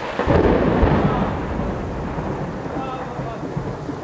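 A rumble of thunder breaks in about a third of a second in, loudest in the first second and slowly fading, over heavy rain falling onto flooded pavement.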